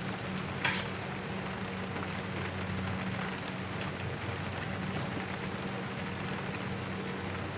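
Steady rain falling, an even hiss of drops, with one sharp tap of a heavier drop or splash a little under a second in.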